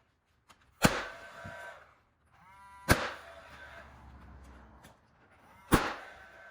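Pneumatic nail gun firing three times into wood trim, each shot a sharp pop followed by a short hiss of air, about two to three seconds apart. A brief squeak comes just before the second shot.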